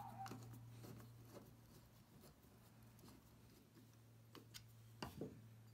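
Faint clicks and taps of a steel rod being handled in a small metal bracket, over a low steady hum, with a couple of sharper clicks and a light knock about five seconds in.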